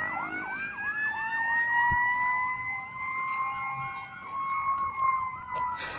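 Emergency vehicle sirens sounding together. One gives a slow wail that rises at the start and then holds its pitch. Another gives a fast yelp of about four rising-and-falling sweeps a second.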